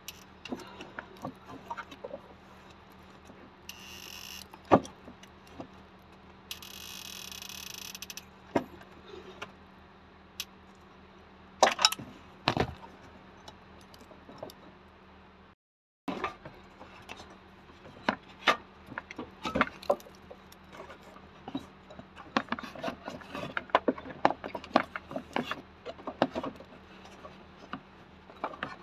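Hand tools and metal parts clicking, clinking and knocking against the engine's belt-drive components, with two short hissing stretches in the first third and a run of rapid, dense clicking in the second half.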